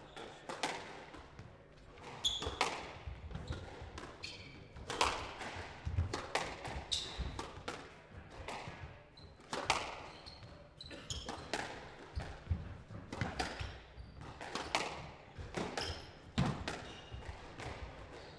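Squash rally: the ball cracking off rackets and the walls, sharp hits about once a second, with shoes squeaking briefly on the wooden court floor. The rally starts about two seconds in.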